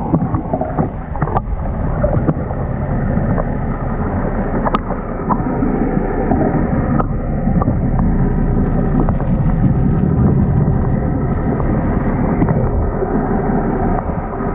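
Muffled water noise picked up by a camera held underwater: a steady low churning rumble with a few scattered clicks, getting a little louder about halfway through.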